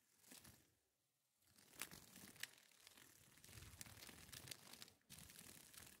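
Peacock butterfly's wings fluttering and rustling, a faint papery crackle with a few sharp clicks. The sound drops away for a moment about a second in and briefly again near the end.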